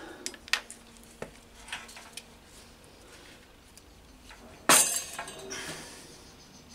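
Metal hand tools being handled and set down on a wooden workbench: a few light clinks, then one loud metallic clank about five seconds in that rings briefly.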